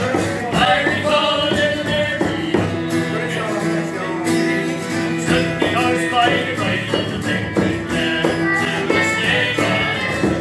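Celtic folk tune played live by a small group: an acoustic guitar strumming steadily under a running melody line.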